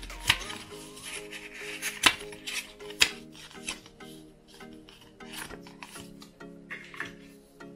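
Stiff card inserts and a folded paper booklet rubbing and sliding against each other in the hands, with sharp card clicks, the loudest near the start and about two and three seconds in. Soft background music plays underneath.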